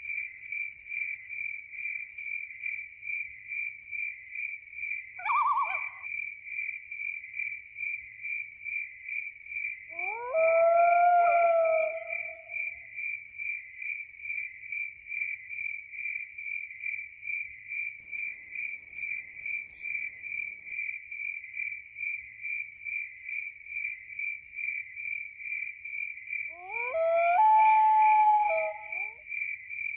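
Crickets chirping in a steady, even pulse throughout, with a long, drawn-out howl about ten seconds in and another near the end, and a short call around five seconds in.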